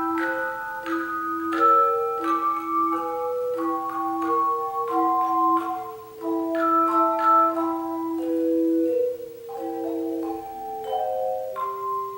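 Tone chime ensemble playing a melody: struck chime notes ring on and overlap into chords over a low note that keeps sounding beneath them.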